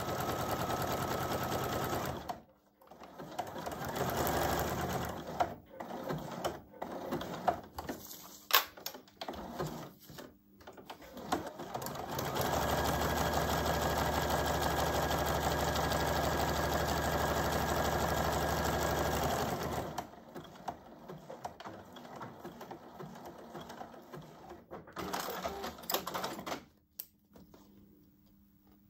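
Electric sewing machine running a zigzag stitch through waterproof Wickelfisch bag material. It sews briefly, stops, then goes on in uneven stop-start spells with sharp clicks, then makes a steady run of about seven seconds, followed by softer handling sounds as the work is moved.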